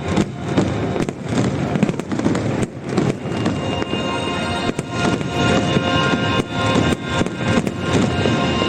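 Fireworks bursting and crackling in quick, uneven bangs over a loud music soundtrack. The bangs are thickest in the first few seconds, and then a sustained music chord takes over with fewer bursts.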